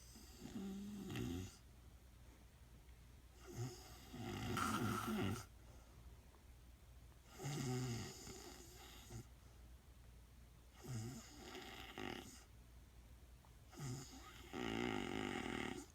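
Woman snoring in her sleep: five snoring breaths, one every three to four seconds, each lasting one to two seconds.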